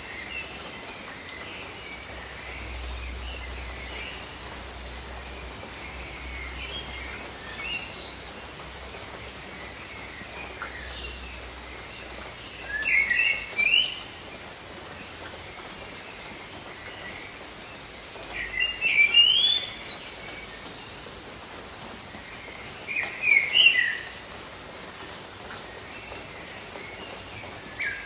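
Steady gentle rain with a songbird singing over it: short phrases of quick chirps and sweeping whistles, the loudest three coming in the middle and latter part, with softer chirps in between.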